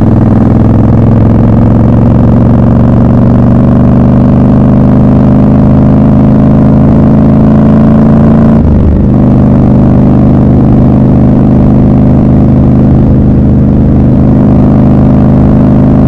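Triumph Scrambler 1200 XC's parallel-twin engine running under way, its note rising slowly as the bike accelerates. A short break about nine seconds in, as at a gear change, after which it runs steadily at cruising speed.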